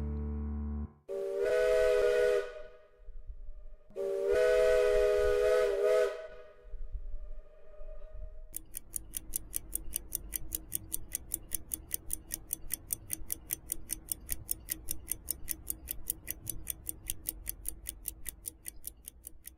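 A train whistle blows two chord-like blasts, the second longer and fading out. It is followed by a rapid, even ticking of about four or five a second over a faint steady hum.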